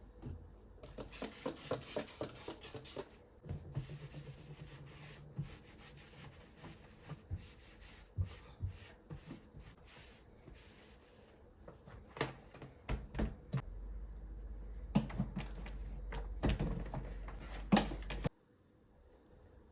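Kitchen handling sounds: a run of knocks and clicks of utensils and dishes being set down and moved, with a quick rhythmic scraping from about a second in to three seconds in. A low steady hum comes in near the end, and all the sound cuts off suddenly shortly before the end.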